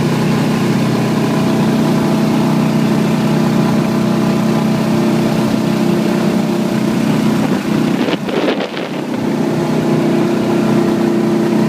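Backwater long-tail mud motor running steadily at speed, pushing a jon boat across open water. About eight seconds in, its sound dips and bends briefly, then steadies again.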